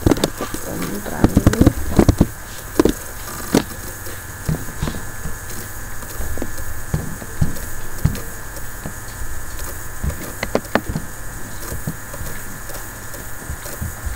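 Irregular knocks and clicks over a steady low hum, busiest in the first two seconds and again around ten seconds in.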